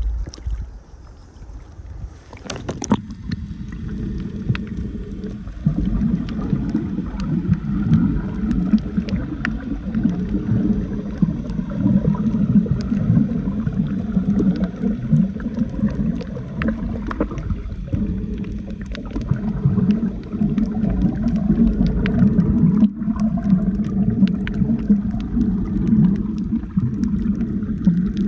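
Underwater sound through a snorkeling camera: a muffled, churning low rush of water with a scatter of faint clicks. A sharp burst comes about three seconds in, after which the low rush grows louder.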